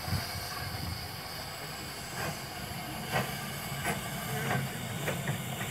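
15-inch-gauge steam locomotive Hurricane hissing steam while it stands on a turning turntable. Under the hiss runs a low rumble, with scattered sharp clicks and knocks from about two seconds in.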